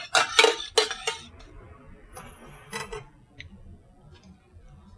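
A metal spoon clinking against a stainless steel saucepan while stirring broth: several quick clinks in the first second and one more near the middle, then only faint handling.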